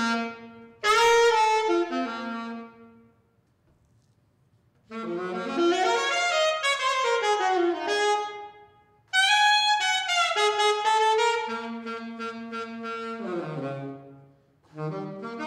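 Saxophone played clean, with no effects pedal on the sound: melodic phrases of quick runs and held notes. A gap of about two seconds comes around three seconds in, then a longer phrase ends with a falling run to a low note.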